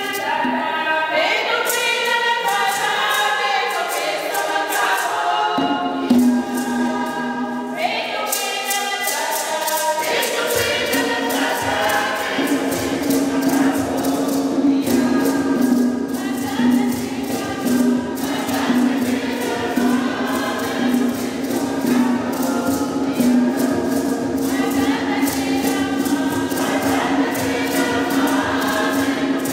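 A Congolese mixed choir of women and men singing together to conga drums and a steady sharp percussive beat; the drums' low beat fills in about ten seconds in.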